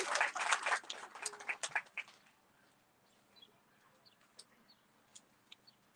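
Clapping fading out over the first two seconds, then quiet with a few brief, high bird chirps.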